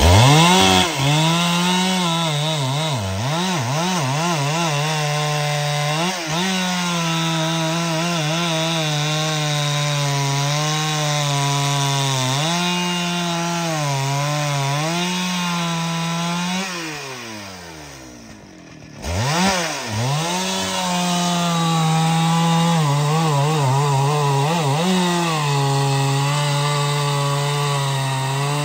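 Large professional two-stroke chainsaw running at high revs while cutting through wood, its pitch dipping and recovering again and again under load. Past the middle it winds down, drops out for a moment, then revs straight back up and carries on cutting.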